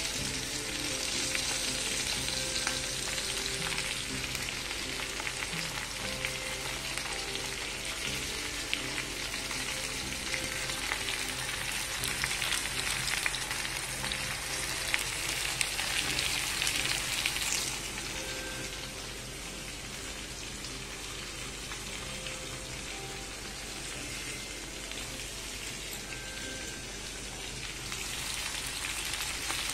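Masala-coated okra (bhindi) shallow-frying in oil in a pan, a steady sizzle with fine crackling. The sizzle turns quieter about two-thirds of the way through and comes back up near the end.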